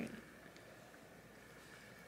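Near silence: faint room tone with a thin, steady high whine.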